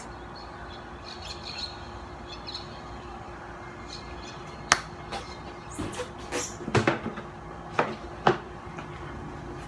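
Quiet room tone with a faint steady hum, broken in the second half by a few sharp short clicks and brief chirps.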